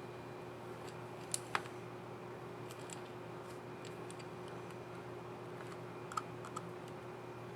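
Small plastic clicks from a Lenovo Yoga 2 11 laptop keycap and its scissor mechanism being handled and pressed onto the keyboard: a few scattered light clicks, the sharpest about one and a half seconds in, over a steady faint hum.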